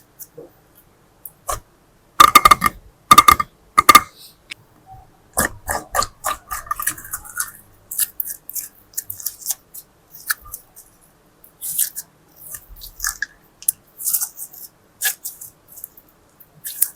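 Slime being squished and stretched by hand, with irregular sticky clicks, crackles and pops. Three loud, short pitched sounds come between about two and four seconds in.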